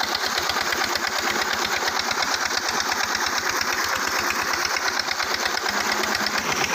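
Single-cylinder Peter diesel engine driving a tubewell pump, running with a steady, rapid beat of firing strokes, mixed with water gushing from the outlet pipe into a concrete channel. The pump is delivering a weak flow today.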